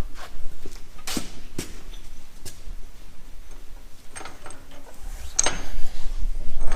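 Scattered knocks and clicks, then a cluster of light metallic clinks with a faint high ring from about four seconds in: small steel pieces being handled and set down on a bench.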